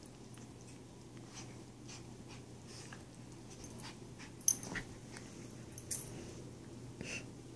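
A schipperke scuffling with a dog bed and blanket on a couch, making short dog noises among scattered scraping sounds. A few sharp knocks come in the second half, the loudest about four and a half seconds in.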